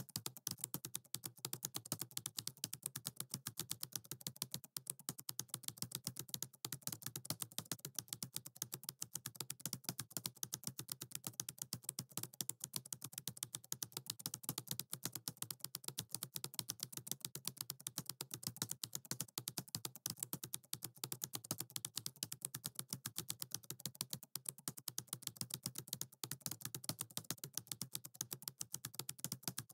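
Computer keyboard typing: a rapid, even run of key clicks that keeps going without pauses.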